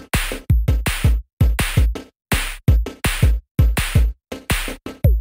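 Electronic background music: a drum-machine beat of deep kick-drum thumps and sharp snare hits, each cut off abruptly, with short silent gaps between phrases.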